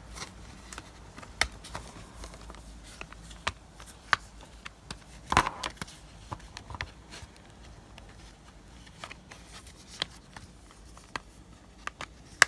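Scattered clicks, taps and rustles of Blu-ray cases and their packaging being handled, with one louder knock about five seconds in.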